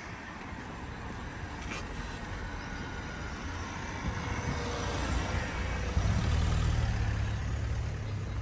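Fiat Doblò van driving past, its engine hum growing louder as it approaches and loudest in the last couple of seconds.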